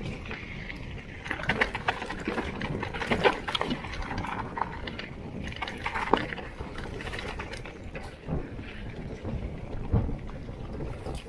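Mountain bike ridden down a rocky singletrack: tyres rolling over stones under a steady rush of noise, with frequent irregular knocks and rattles from the bike.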